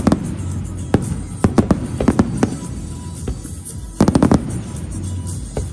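Aerial fireworks shells bursting in sharp bangs, scattered at first, then a quick cluster of several about four seconds in, with music playing underneath.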